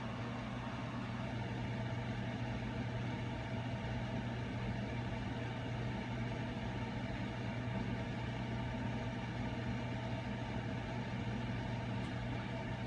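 Steady low mechanical hum, like an engine or motor running, holding level and pitch throughout.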